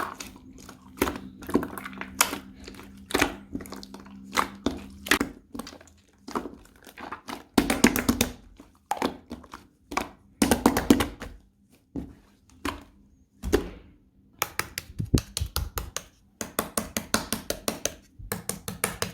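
Hands playing with slime: pokes, squishes and stretches with sharp popping clicks, turning into a quick run of clicks, several a second, in the last few seconds.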